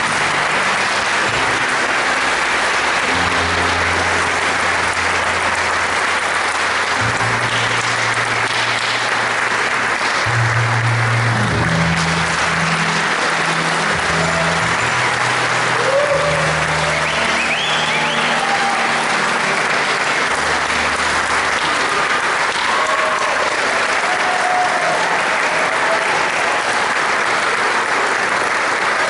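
Audience applauding steadily, with background music carrying on underneath.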